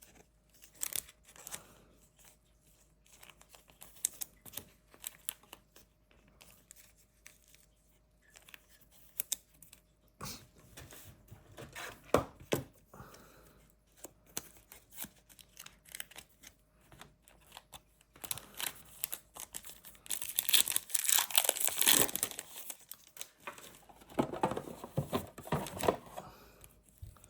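Plastic wrapper of a trading card pack being torn open and crinkled, loudest in two stretches near the end, after many seconds of quieter scattered rustles and clicks.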